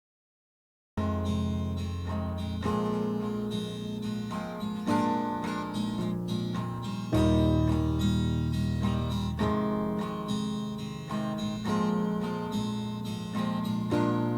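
Acoustic guitar playing an instrumental song intro, starting about a second in, with strummed chords that change every couple of seconds.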